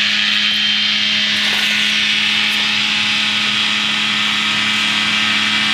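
Kitfox floatplane's engine running steadily at takeoff power, heard from down the grass strip as the plane begins its takeoff run: a constant drone with a strong hiss.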